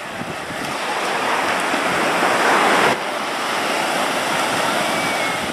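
Ocean shorebreak: a wave breaking and white water rushing against the rocks, a continuous hiss of surf that grows louder toward about halfway through, then drops off sharply.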